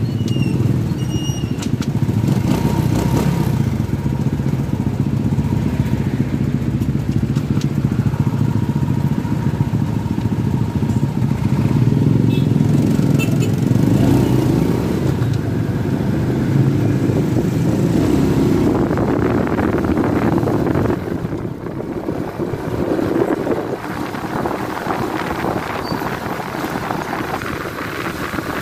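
Motorcycle engine running while riding through traffic, with road and wind rush. About twenty seconds in the engine hum weakens and the wind rush becomes the main sound.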